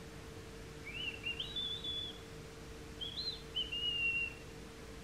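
Two high whistled phrases, each a few quick rising notes ending in a held note, over a steady low hum.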